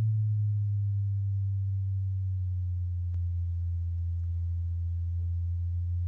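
Low sine-wave test tone from a signal generator, played through Edifier R2730DB active speakers. It glides slowly down to about 100 Hz and then holds steady. The sweep checks whether the speakers play the bass range evenly, without dips.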